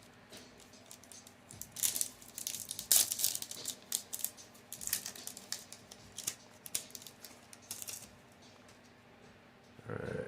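Foil Yu-Gi-Oh! booster pack wrapper crinkling and tearing as it is opened by hand, with irregular sharp crackles for several seconds and cards rustling.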